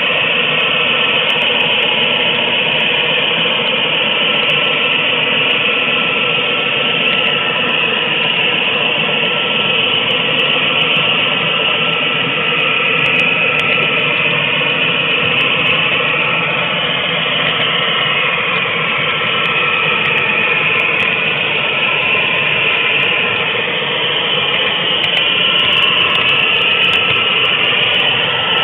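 HO-scale model train running along the track, heard from aboard a moving flat car: a steady, loud rolling rattle and whir of small metal wheels on rails and running gear.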